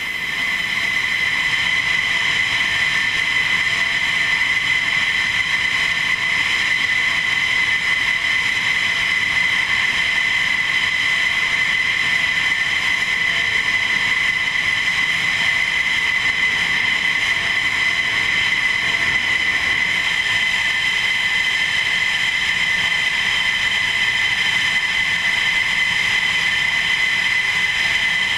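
Jet turbines running at idle, giving a steady, high-pitched whine that holds unchanged throughout.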